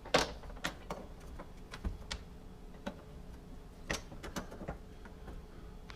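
Irregular light clicks and taps of small metal parts and screws being handled while a car's sunroof bracket is refitted, the sharpest click just after the start and a few more in quick succession about four seconds in.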